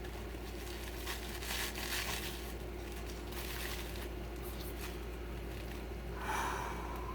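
Bubble wrap crinkling and rustling as it is handled, with a louder rasp about six seconds in.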